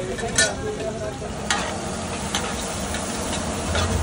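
Chopped onions sizzling in hot oil on a large flat tawa, with a few sharp scrapes and taps of a flat spatula on the griddle as they are stirred.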